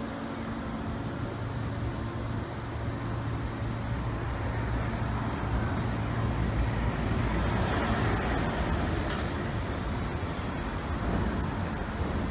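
Road traffic passing on a busy street: a steady rumble of engines and tyres, with a low engine hum in the first few seconds and a vehicle passing close and loudest about eight seconds in, when a thin high whine starts.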